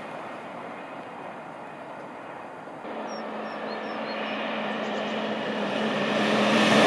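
The fading rumble of a receding LNER Azuma high-speed train. About three seconds in it changes abruptly to the sound of a TransPennine Express train approaching at speed: a steadily rising rush of wheel and air noise with a steady hum beneath it.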